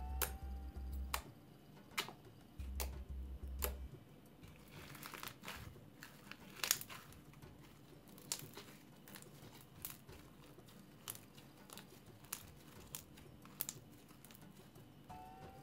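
Glittery fluffy slime made with shaving foam being squeezed and kneaded by hand: many small sharp pops and clicks, with a denser crinkly stretch around the middle.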